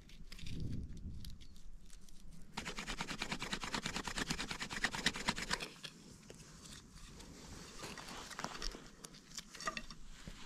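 A wooden stick grinding and scraping in dry soil and leaf litter: dense rapid scratching for about three seconds from a few seconds in, then lighter rustles and scrapes.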